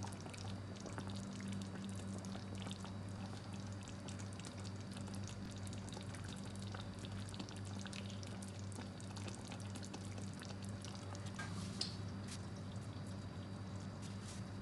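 Thick mushroom sauce being poured and dripped over a plate of pork chop and rice, heard as soft drips and scattered faint clicks over a steady low hum. One sharper click comes near the end.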